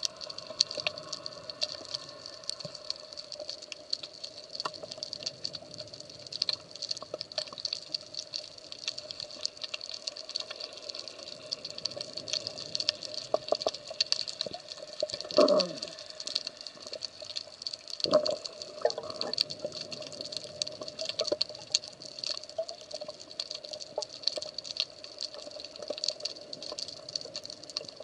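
Underwater ambience on a rocky seabed, recorded through a camera housing: a steady crackle of tiny clicks over a faint hum, with two short bubbling gurgles about halfway through.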